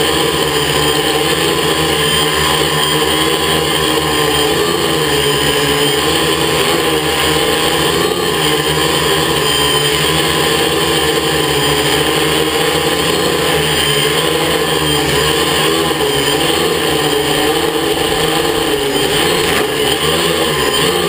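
Multirotor quadcopter's motors and propellers running with a steady buzzing hum, close to the camera. The pitch wavers slightly as the motor speeds shift.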